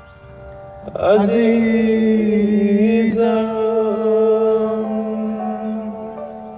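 A man singing one long held note in a Persian song, coming in loudly about a second in and fading near the end, over sustained keyboard tones.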